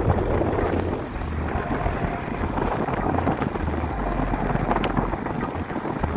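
A van driving along, its engine and tyre noise mixed with wind buffeting a microphone held out of the open side window.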